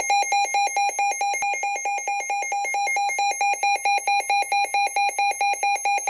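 Midland NOAA weather alert radio sounding its warning alarm: a loud, rapid electronic beeping at one steady pitch, about four beeps a second. It signals that a severe thunderstorm warning has been received.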